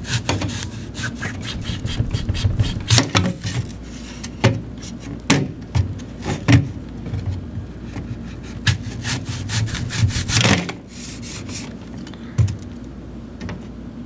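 Kitchen knife sawing through an apple on a plate: rasping cutting strokes, broken by many sharp clicks and knocks, the loudest about ten seconds in.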